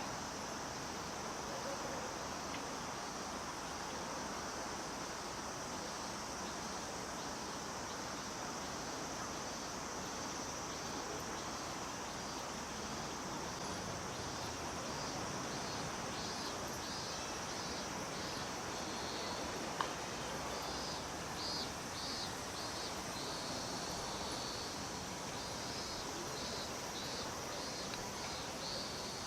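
Cicadas calling: a steady high buzz, joined from about halfway by a pulsing cicada call of a few beats a second, over a steady background hum. One sharp click about two-thirds of the way through.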